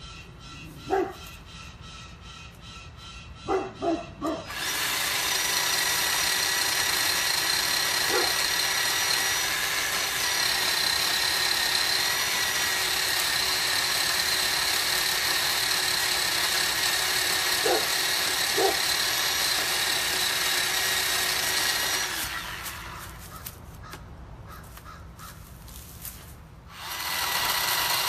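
Bauer 20V cordless electric chainsaw running with a steady high whine as it cuts through a small tree trunk low down, after a few short sharp sounds. It starts about four and a half seconds in, stops at about twenty-two seconds, and starts again near the end.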